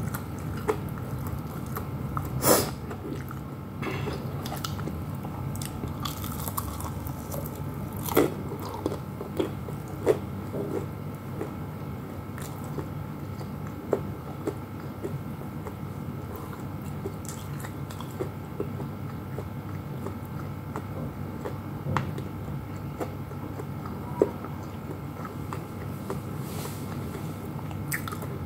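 Close-up biting and chewing of crispy fried chicken, with a few sharp crunches of the breaded coating, most of them in the first ten seconds, over a steady low background hum.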